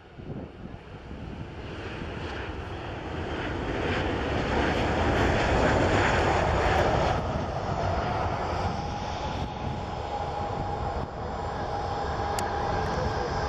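Boeing 737-800's CFM56-7B turbofan engines on landing: a jet roar that builds as the airliner passes low overhead, loudest around touchdown five to seven seconds in. It then settles into a steady roar with a high engine whine as the jet rolls out down the runway.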